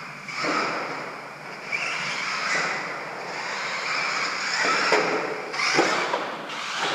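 Radio-controlled stadium truck running on a dirt track: a whine that rises and falls with throttle over a haze of tyre noise, with two sharp knocks about five and six seconds in.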